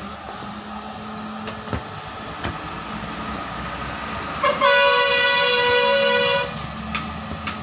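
A blade scraping and snicking at the paper cone around the voice coil of a 12-inch speaker, with a few faint clicks. Just past halfway a loud horn sounds for about two seconds, drowning the cutting.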